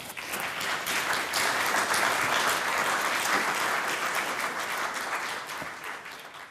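Audience applauding, the clapping building within the first second, holding steady, then dying away near the end.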